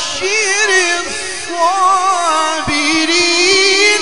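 A man reciting the Quran in a melodic, drawn-out style, holding long ornamented notes whose pitch winds up and down, amplified through a microphone.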